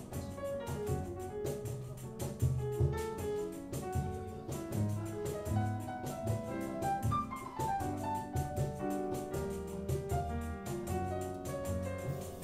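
Live small-group jazz: piano playing runs of notes, with a falling run about seven seconds in, over a double bass and a drum kit's cymbals.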